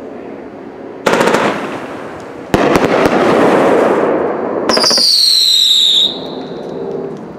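Phantom Fireworks 'Amped' 25-shot 500-gram cake firing: a quick cluster of shots about a second in, then a louder barrage with dense crackling from about two and a half seconds. Near the end more shots and a high whistle, falling slightly in pitch, lasting about a second.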